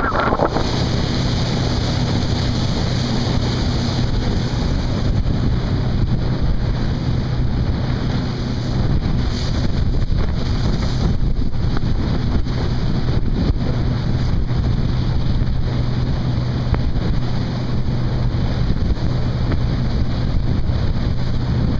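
Honda 130 hp four-stroke outboard motor running at a steady cruising speed with the boat under way. Wind buffets the microphone, and water rushes past the hull.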